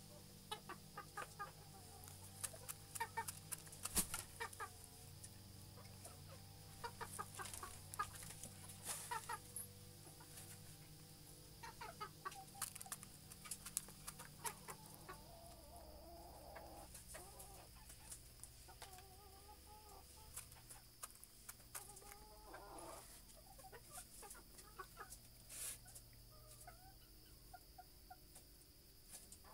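Rooster giving faint, intermittent clucks, mixed with scattered sharp clicks and knocks.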